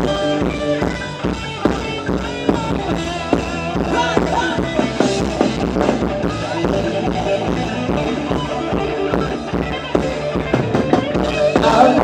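Live ramwong dance band playing an upbeat song with a steady drum-kit beat.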